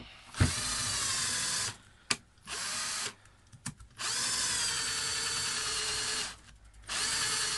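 Cordless drill boring a hole in a small wooden board, its motor whining in four runs with short stops between, the longest about two seconds. There is a sharp click between the first two runs.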